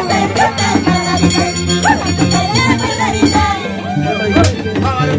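Live Andean folk dance music: a violin melody over a steady low bass line, playing without a break.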